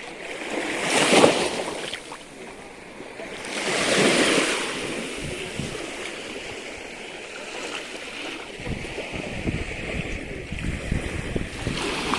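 Ocean surf: two waves surge and wash in about one and four seconds in, followed by a steady wash of water. From about two-thirds of the way through, wind buffets the microphone with low rumbling gusts.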